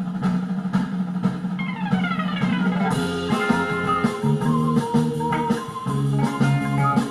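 Pop music with a drum beat and plucked guitar played through an 808 Canz XL portable Bluetooth speaker, with a falling sweep about two seconds in before the full beat and bass come in.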